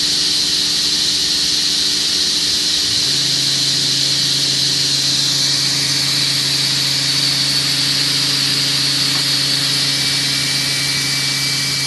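Altendorf F45 sliding table saw running free at full speed, a loud, steady high whine with hiss, just after spinning up. A lower hum joins about three seconds in.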